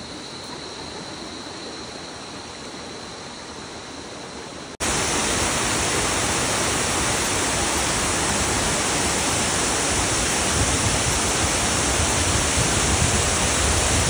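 Waterfall: steady rushing water. A quieter hiss with a faint high whine gives way abruptly, about five seconds in, to a much louder, even rush of falling water close by.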